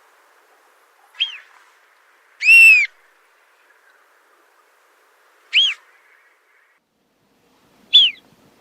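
A plover giving single whistled calls, four in all and spaced a few seconds apart. Each is a short clear note that rises and then falls in pitch, and the second is the loudest.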